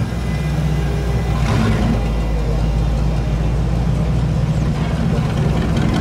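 Classic V8 cars driving slowly past at close range: a steady low exhaust rumble, with a brief swell of higher noise about one and a half seconds in. The cars include a custom 1940s pickup and a C3 Corvette Stingray.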